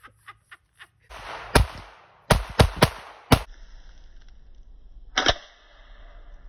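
Gunshots from a firearm, about six in an uneven string: five quick shots in the first half, then one more about five seconds in.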